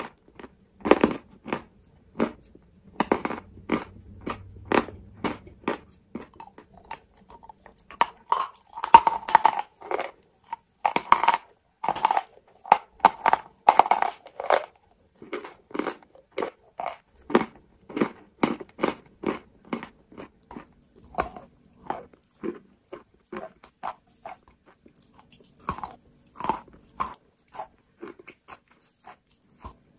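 Close-up crunching and chewing of chalk pieces: many short, crisp crunches, about two a second, denser and louder around the middle.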